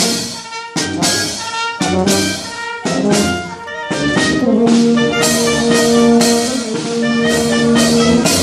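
Street brass band playing: horns and saxophone over snare drum, bass drum and clashing hand cymbals, which beat steadily in the first half. From about halfway the band holds one long, steady chord.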